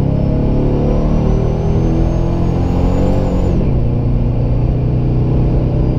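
Inside the cab of a TorqStorm-supercharged 2012 RAM 1500 4x4 pulling at full throttle: the engine note and the supercharger's high whine rise in pitch, drop together at an upshift about three and a half seconds in, then climb again.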